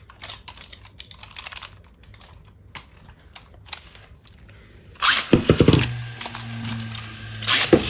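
Faint plastic clicks as the Ultimate Valkyrie and Burst Spriggan Beyblades are readied on their launchers. About five seconds in, both are launched into a plastic Beyblade stadium and spin with a steady whirr, a poor launch. A loud clash of the two tops comes near the end.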